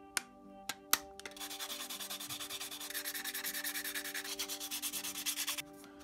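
A few sharp snips of side cutters on plastic sheet, then rapid back-and-forth sanding of the edges of a small white plastic box, about eight or nine strokes a second, stopping near the end.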